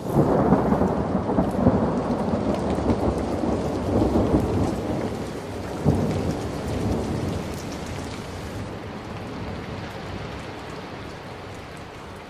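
A long peal of thunder that starts suddenly, swells a few times, then dies away over several seconds, over steady rain.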